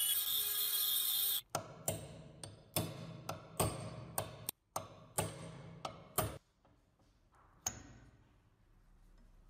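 A rotary tool with a small polishing bit runs against the end of an old meat grinder's crank handle and stops abruptly about a second and a half in. Then a hammer strikes a steel punch on the crank arm's handle pin, knocking it out: about a dozen sharp metallic taps with a short ring, then one last tap a little over a second later.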